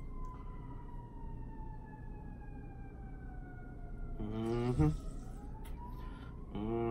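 An emergency vehicle siren wailing slowly, its pitch falling for about four seconds and then rising again. A man gives a short low hum about four seconds in and again near the end.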